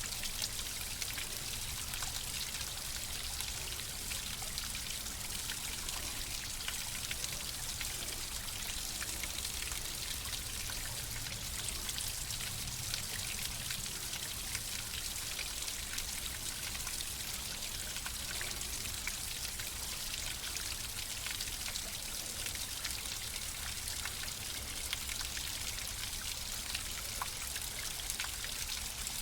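Steady flowing water, an even hiss of a stream or running water with many small droplet splashes and trickles through it.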